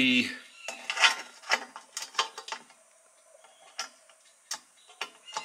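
Small metallic clicks and taps as the brass bayonet base of an amber parking-light bulb is worked against its socket in a chrome headlight bucket: a quick run of clicks in the first two and a half seconds, then a few sparser ones. The socket does not hold the bulb well.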